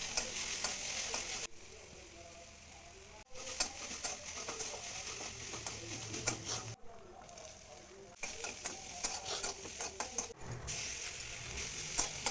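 Food sizzling in hot oil in a pan, with a utensil clicking and scraping as it is stirred. The sizzle cuts out and back in abruptly several times.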